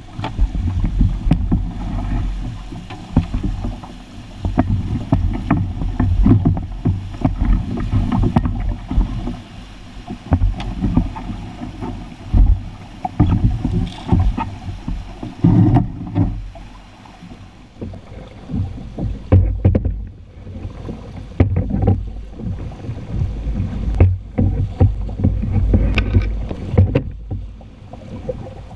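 Fast water of a rapid rushing around a canoe as it is poled upstream, with low rumbling wind buffeting on the microphone and frequent short knocks.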